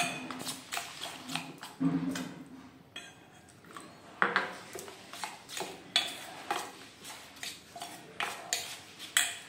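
Steel spoon stirring a thick semolina-and-yogurt batter in a stainless steel bowl, clinking and scraping against the bowl's sides in irregular sharp clicks, several a second.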